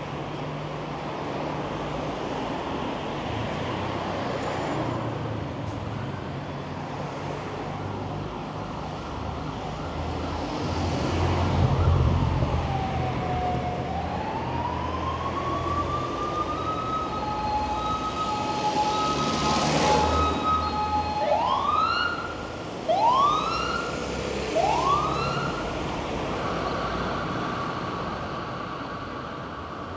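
Emergency vehicle siren over street traffic. About a third of the way in it slides down and climbs back into a held wail, then gives three quick rising whoops about a second apart, and settles into a steady high tone near the end.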